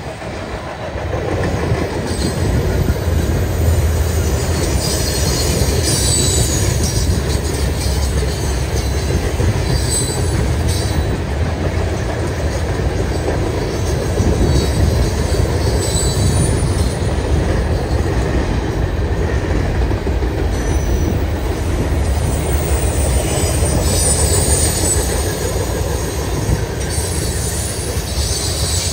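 Canadian National freight train's cars rolling past at close range: a steady rumble of steel wheels on the rails, with brief high wheel squeals now and then.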